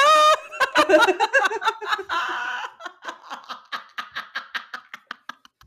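Women laughing hard. A loud, high-pitched laugh at the start trails off into a run of short breathy laugh pulses, several a second, that fade out.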